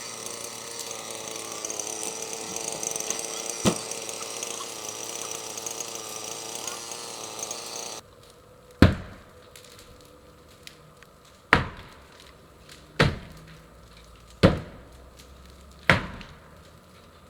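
Heavy blows striking wood during a building teardown: after a stretch of steady background noise with a single knock, five hard chopping or hammering strikes land about a second and a half apart, each ringing off briefly.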